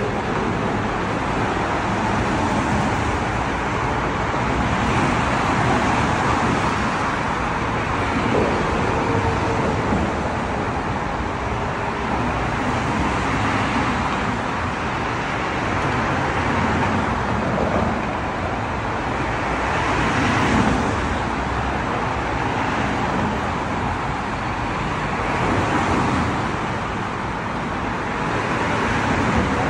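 Steady road traffic noise that swells and fades every few seconds as vehicles pass.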